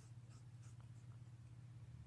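Near silence: faint scratchy ticks of a cat's teeth gnawing on a bone, over a low steady hum.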